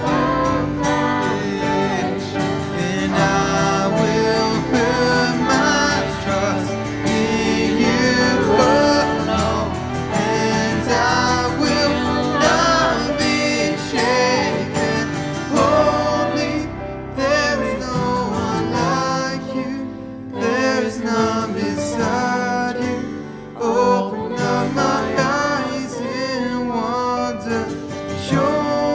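Worship song performed by voices singing together over strummed acoustic guitar and a Roland keyboard.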